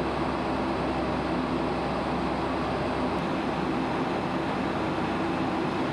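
Steady cabin noise of a Boeing twin-jet airliner in cruise: engine and airflow noise heard from inside the cabin, with a low hum underneath.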